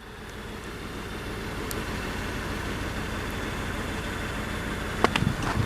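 T-150K wheeled tractor's diesel engine running steadily and growing gradually louder, with a few short clicks near the end.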